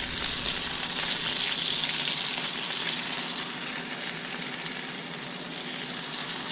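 Marinade-soaked king mackerel pieces sizzling in hot olive oil in a cast-iron skillet as they are seared, a steady high hiss that eases a little as more pieces are laid in.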